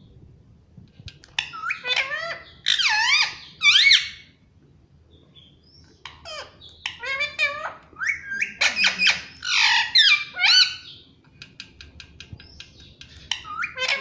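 Indian ringneck parakeet calling: loud bursts of high, swooping squawks and chatter, with a pause about four seconds in. Near the end comes a quick series of clicks and a few more calls.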